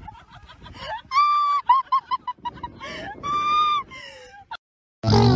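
A bird honking: quick runs of short honks, with two longer, held honks about a second in and a little past three seconds in.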